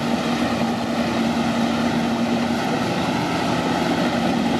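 Kubota diesel tractor engine running steadily under load as it drives a rotary tiller through flooded paddy mud, a steady mechanical drone.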